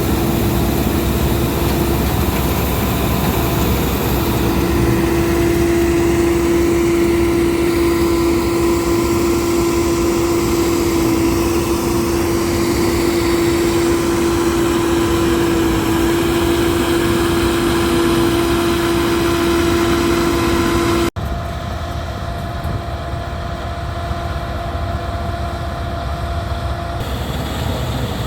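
Laverda Fiatagri 3790 combine harvester running steadily, with a loud, even mechanical hum and a steady whining tone over it. About three-quarters of the way through, the sound drops abruptly to a quieter machine noise without the whine.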